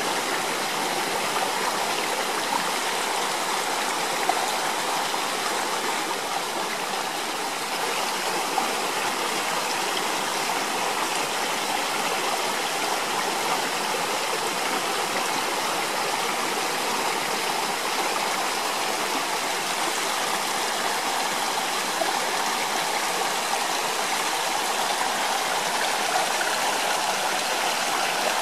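Steady, even rush of running water that does not change.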